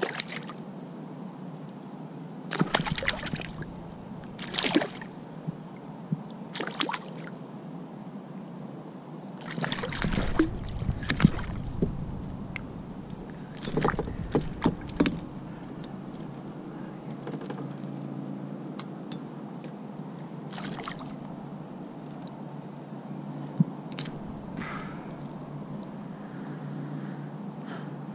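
Water splashing and sloshing against a kayak, in short bursts a few seconds apart over a low steady hum.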